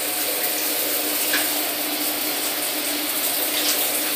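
Shower running: a steady hiss of water spraying into a tiled stall, with a faint steady hum underneath.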